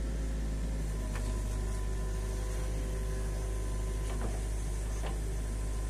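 Mini excavator's diesel engine running steadily with a low hum, while the hydraulic boom lifts the bucket; a few faint knocks come through.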